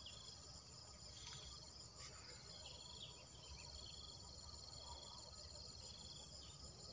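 Faint insect chorus: a steady high trilling with short chirps repeating every second or so, close to silence.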